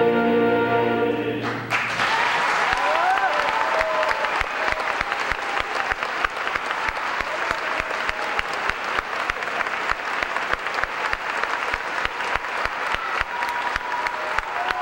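A choir and chamber orchestra hold a final chord that breaks off about two seconds in, and the audience bursts into sustained applause.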